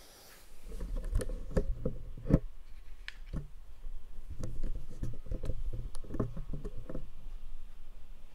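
Handling noise from a small camera being picked up and carried by hand: a low rumble with scattered clicks and knocks, the sharpest about two seconds in.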